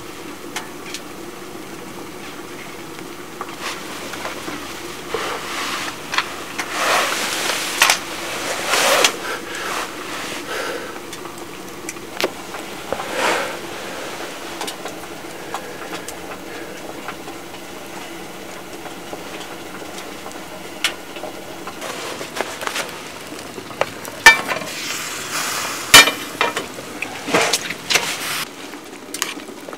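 Wood stove fire hissing and crackling, with a few soft rushing swells in the first half and two sharp, loud pops about a second and a half apart near the end.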